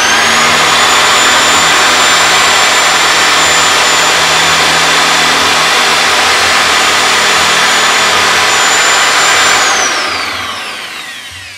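Bosch GSB 550 corded drill running at full speed with a steady high whine while drilling into an old wooden log. About ten seconds in, the trigger is released and the motor winds down, its pitch falling.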